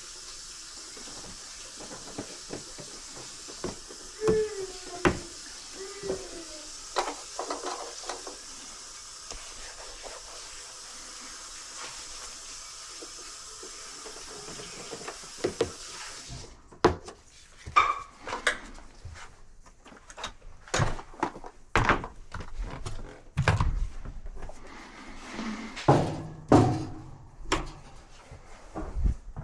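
Irregular knocks and clatters of hard objects being handled, louder and more frequent in the second half. A steady hiss stops suddenly about sixteen seconds in.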